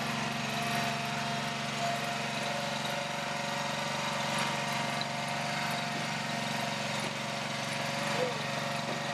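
Small engine of a shed-moving mule running steadily at a constant speed.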